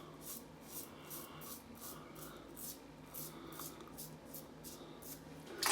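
Gillette Tech safety razor with a Perma-Sharp stainless blade scraping through lathered stubble in short, quick strokes, about three a second, faint.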